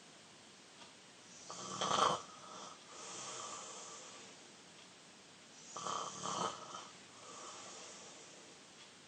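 A person snoring in sleep: two loud, rasping snores about four seconds apart, each followed by a softer, longer breath.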